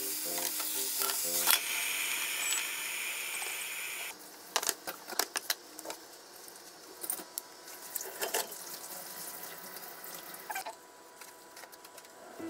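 Sliced lotus root sizzling in a frying pan as a steady hiss that cuts off about four seconds in. Then light, scattered clicks and taps as hands handle bento boxes of rice and lay shiso leaves on it.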